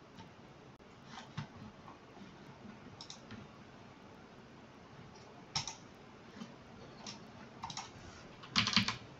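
Sparse clicks from a computer mouse and keyboard, a few scattered through the first part and a quick, louder cluster near the end, over faint background hiss.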